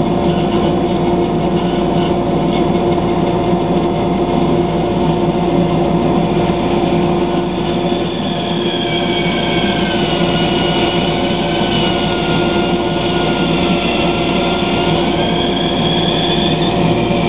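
Bandsaw with the dust collector running steadily while a bloodwood board is resawn along a fence. From about halfway through, a wavering whine rises and falls as the blade works through the hard wood. The board was releasing tension and fighting the blade during this cut.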